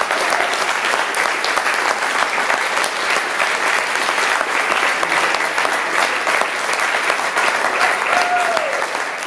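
Concert audience applauding steadily, dense clapping from many hands. A single voice calls out briefly about eight seconds in.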